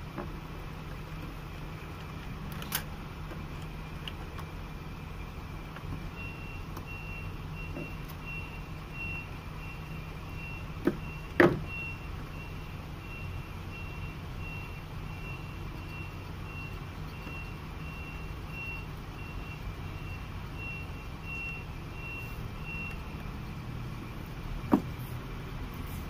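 Small clicks and knocks from hands refitting the motor wiring of a twin-tub washing machine, the loudest about eleven seconds in, over a steady low hum. A string of short high beeps repeats evenly through the middle stretch.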